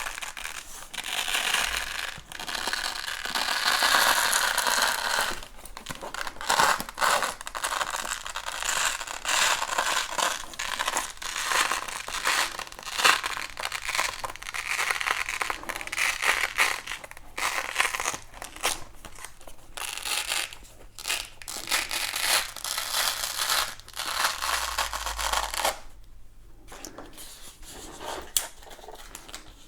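Industrial-strength Velcro hook-and-loop strips being handled and peeled: repeated rasping, tearing and crinkling sounds in irregular bursts, dying away near the end.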